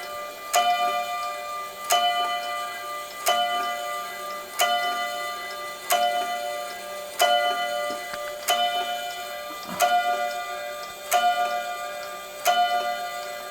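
Automaton wall clock striking the hour, with its blacksmith figure working: a ringing, bell-like metallic tone struck about every 1.3 seconds, ten strikes here, each dying away before the next.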